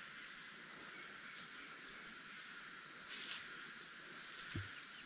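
Rainforest insects droning steadily at a high pitch, with a brief hiss about three seconds in and a soft low thump near the end.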